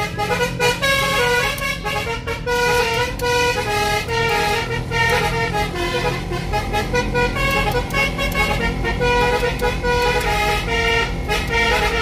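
Basuri telolet musical car horn playing a continuous tune of short horn notes, over the steady rumble of the moving car.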